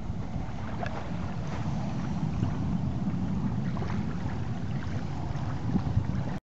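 Wind buffeting the microphone: a steady low rumble that cuts off suddenly near the end.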